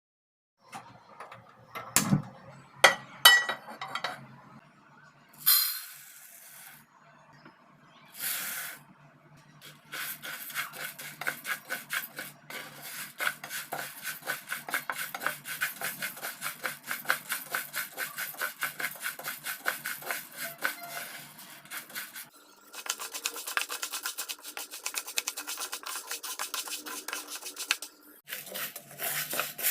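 A spatula stirring and scraping in a metal cooking pan in quick repeated strokes, after a few knocks and clinks of utensils in the first seconds.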